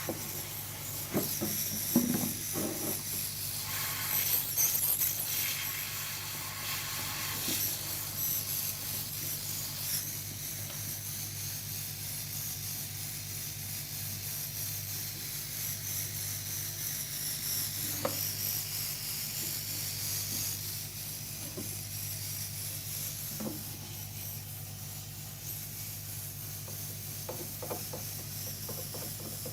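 Steady electrical hum under a high hiss, with occasional light clicks and taps.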